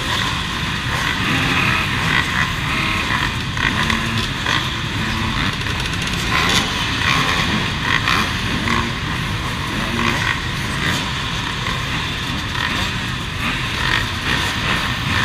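Dozens of enduro motorcycle engines running at once in a packed starting grid, a dense, steady, overlapping din in which no single bike stands out.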